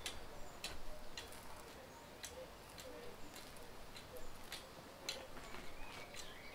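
Faint, irregular clicks and scratches of a garden rake drawn through bare soil, about one or two a second.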